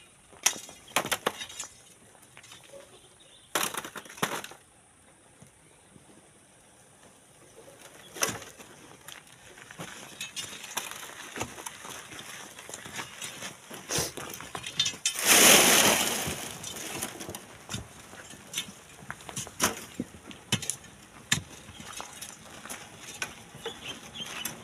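Scattered clinks and knocks of stones and hand tools on rock during manual sand digging, with a loud rush of noise lasting about two seconds two-thirds of the way through.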